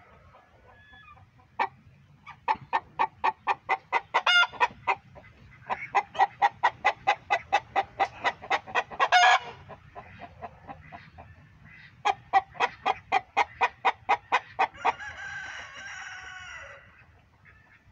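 Chickens clucking in three quick runs of about six clucks a second, the first two runs ending on a louder note, followed near the end by a drawn-out call of about two seconds that drops in pitch at its close.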